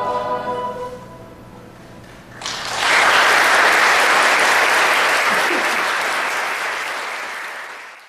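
A youth choir's final held chord with piano dies away, and after a short hush an audience breaks into applause about two and a half seconds in, then slowly fades before cutting off at the end.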